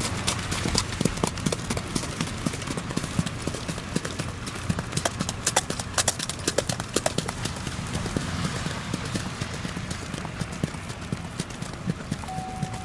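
A horse's hoofbeats in the quick, even four-beat rhythm of the single-foot gait, a steady clip-clop, over the low rumble of the car travelling alongside.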